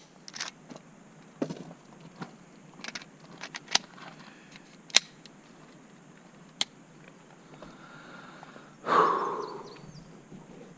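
Scattered sharp clicks and clacks of a Ruger 10/22 rimfire rifle being handled as it is loaded and made ready, then a louder burst of noise lasting about a second near the end.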